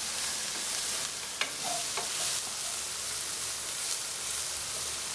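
Mushrooms, shallots and garlic frying in olive oil in a pan: a steady sizzle, with a couple of faint clicks.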